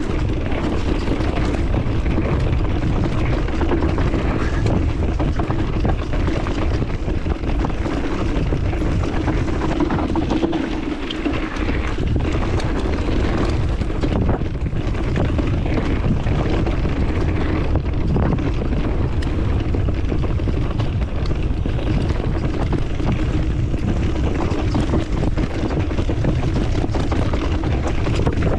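Wind buffeting hard on the microphone over a steady low drone, as from a moving vehicle, holding at much the same pitch throughout.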